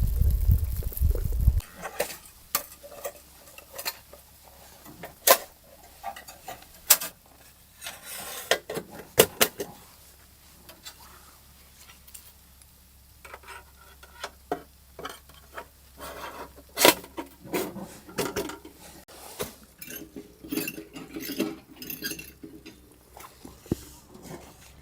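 Metal cookware and utensils clinking and knocking irregularly, as in camp cooking handwork. A loud low rumble stops abruptly about a second and a half in.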